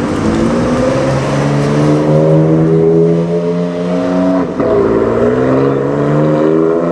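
2016 BMW M4 GTS's twin-turbo inline-six accelerating away hard, its exhaust note rising steadily in pitch. About four and a half seconds in there is a brief drop at an upshift, and then it climbs again.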